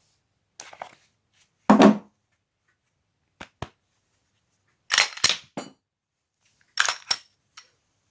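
Glock 17 pistol being handled: about six groups of sharp metallic clicks and clacks with pauses between, the heaviest and deepest clack about two seconds in.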